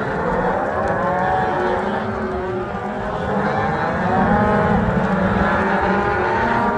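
A herd of cattle mooing, many calls overlapping one another.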